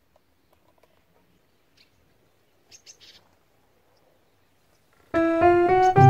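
Near silence with a few faint, short, high bird chirps about three seconds in, then keyboard music with piano-like notes starts suddenly about five seconds in and is by far the loudest sound.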